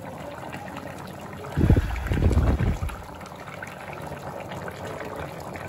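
Wet liquid sounds from the chicken curry over a steady hiss, with a louder, lower burst from about one and a half to three seconds in.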